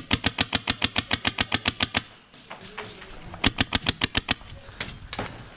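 Airsoft rifle fired full-auto in two bursts of rapid, evenly spaced shots at about ten a second: a long burst of about two seconds, a pause, then a shorter burst of about a second, followed by a few single shots.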